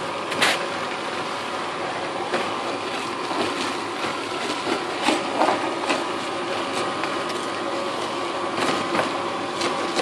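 Homemade dust-collector blower running steadily with a faint whine, its hose sucking wood shavings and sawdust off the floor, with chips clicking and rattling through the hose now and then.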